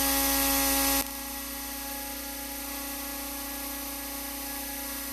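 Pneumatic die grinder spinning a small grinding stone against the jaws of a mini lathe's spinning three-jaw chuck, over the lathe's steady motor whine. A loud air hiss drops off sharply about a second in, leaving a quieter steady running sound.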